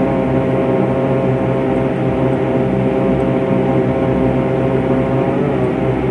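Propeller airplane's engines running with a steady, even drone.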